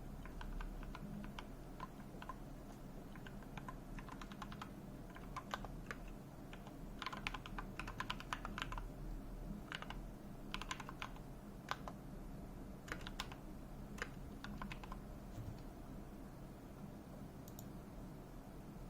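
Typing on a computer keyboard: irregular runs of rapid keystroke clicks with short pauses between them, thinning to a few scattered keystrokes in the last few seconds.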